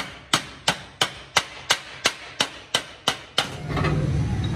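Wooden mallet striking a stainless steel sheet, about three evenly paced blows a second, eleven in all. The blows stop about three and a half seconds in and give way to a steady low hum.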